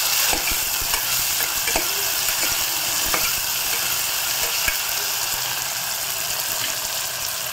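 Sliced onions, coriander and mint sizzling steadily as they fry in oil in an aluminium pressure cooker, with a steel spoon stirring them and clicking against the pot now and then.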